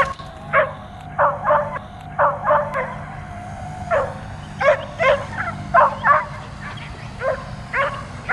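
A dog barking over and over in short, sharp barks, often in quick runs of two or three, about fifteen in all, as it chases and jumps at a drone. A steady low hum runs underneath.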